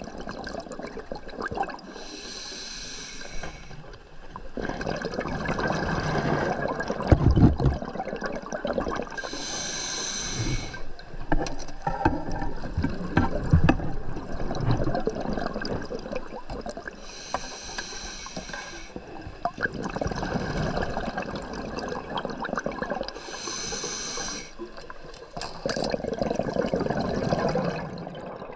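Scuba diver breathing through a regulator underwater: four short hissing inhalations about every seven seconds, each followed by a longer gurgling rush of exhaled bubbles.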